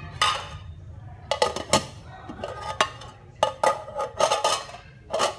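Utensils clinking against a ceramic soup bowl: about a dozen sharp, irregular clinks, each ringing briefly.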